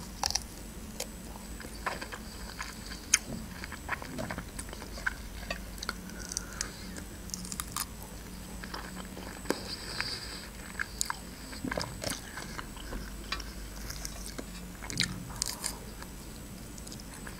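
A person biting and chewing fresh strawberries, with many short mouth clicks and smacks at irregular intervals.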